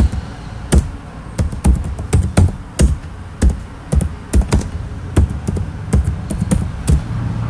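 Typing on a computer keyboard: irregular, sharp keystroke clicks, sometimes in quick pairs, with short pauses between them.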